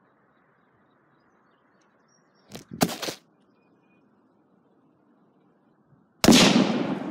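A short clatter of knocks about two and a half seconds in as the camera tips over, then about six seconds in a single .30-06 rifle shot, the loudest sound, with a long echoing tail.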